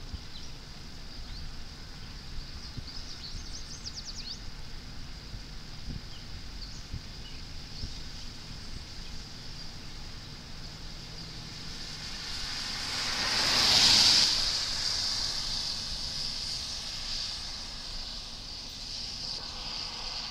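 Wind on the microphone over a steady high outdoor hiss, with a vehicle going past that swells to the loudest point about two-thirds of the way in and then fades.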